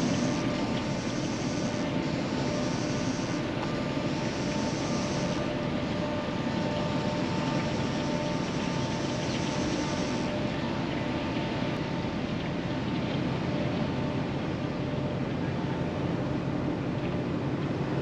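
Steady drone of a passing ocean-going bulk carrier's engine and deck machinery, with several steady hums. A high hiss pulses on and off several times and stops about ten seconds in.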